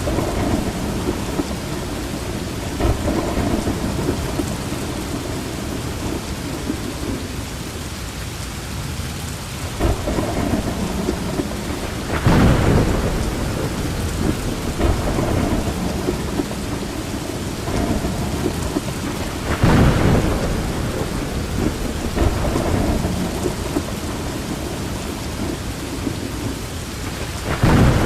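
Steady heavy rain with rumbles of thunder; the loudest thunder claps come about twelve seconds in, again around twenty seconds, and near the end.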